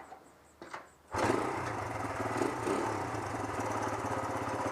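1973 Honda CL100's small single-cylinder four-stroke engine running steadily with a fast, even beat, coming in suddenly about a second in after a few faint clicks.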